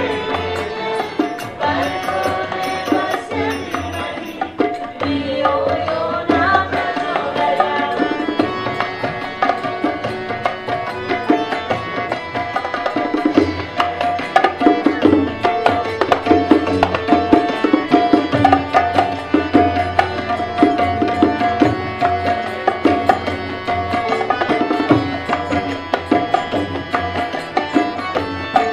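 A small Indian music ensemble playing: tabla strokes over the sustained tones of a harmonium, with voices singing a song.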